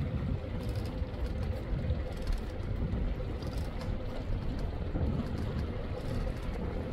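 Wind rumbling on the microphone, with a faint steady hum under it.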